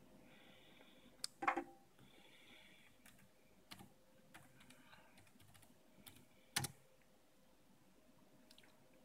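Keys being typed on an HP Pavilion Chromebook laptop keyboard while a login password is entered: a few scattered faint clicks, with two louder key strikes about a second and a half in and again past six seconds.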